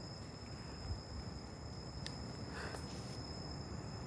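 Insects trilling steadily in one high, thin tone, over a low rumble of handling or wind noise on the microphone. A faint click comes about two seconds in.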